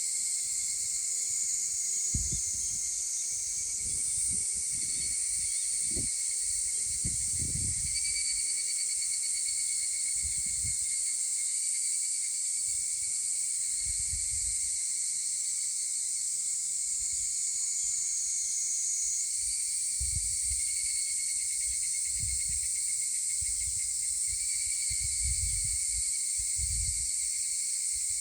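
Higurashi cicadas (Tanna japonensis) singing in a chorus: a dense, steady high ringing with trilled phrases that come and go every several seconds. Irregular low rumbles sit underneath.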